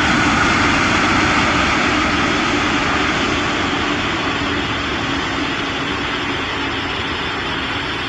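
Boeing 747-400 freighter's jet engines running steadily through touchdown and rollout on the runway, a loud roar that slowly fades. A faint whine falls in pitch in the first second or so.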